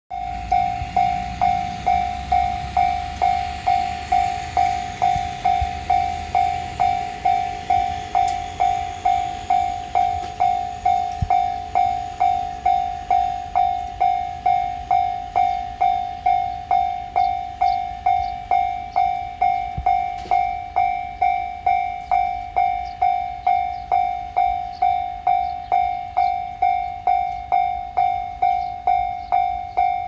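Japanese railroad crossing alarm ringing its 'kan-kan' bell tone, evenly repeated just under twice a second: the crossing is warning of an approaching train. A faint low rumble fades out over the first few seconds.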